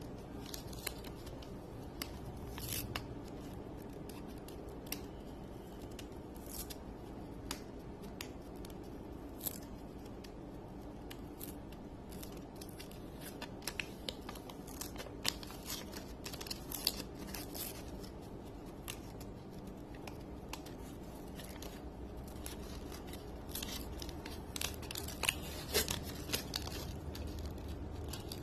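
Protective paper being peeled off the clock kit's shiny case panels, where it is sticky: scattered faint crackles and ticks over a low steady hum, a little busier near the end.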